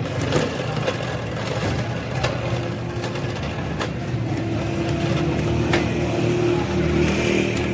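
A vehicle engine running steadily, with a low hum and a steady tone that sets in about two and a half seconds in, and a few sharp clicks or taps over it.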